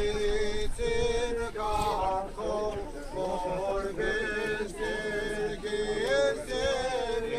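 Slow Armenian church chant sung by men, in long held notes that glide from one pitch to the next.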